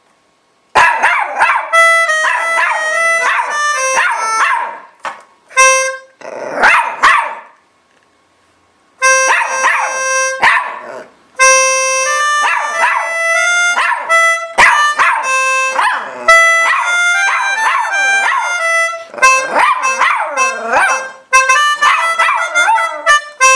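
Organ playing phrases of held notes while a poodle howls and yips along with it in wavering, sliding pitches. The music starts about a second in and pauses briefly twice.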